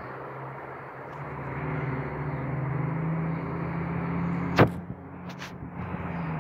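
A car speeding along the street below: its engine grows louder and rises a little in pitch for a few seconds, then fades. Past the middle there is one sharp click, followed by two fainter ticks.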